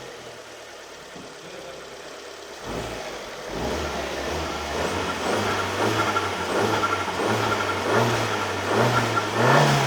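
Alfa Romeo MiTo QV's 1.4 turbocharged four-cylinder on its stock intake and air filter, idling quietly, then from about three seconds in revved in a run of quick throttle blips that grow louder, the loudest just before the end.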